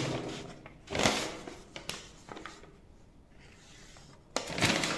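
Paper sheets rustling as they are moved and shuffled, in a short burst about a second in and again near the end, with a few soft clicks between.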